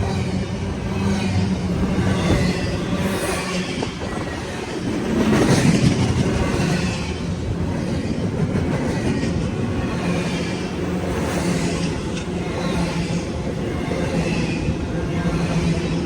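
CSX intermodal freight train rolling past, a steady rumble of wheels on rail, swelling louder for a moment about five seconds in.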